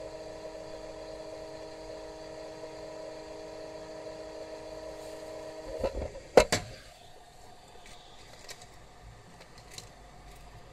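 Hot-air gun's fan running with a steady hum while the phone is warmed to loosen the display; it stops about six seconds in, with a few sharp clicks and knocks. After that there are only faint occasional ticks.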